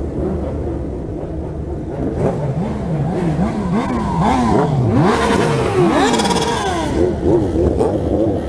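Motorcycles with de-baffled, straight-through exhausts being revved in quick repeated throttle blips, the engine pitch sweeping up and down over and over. The revving gets louder and harsher from about five seconds in.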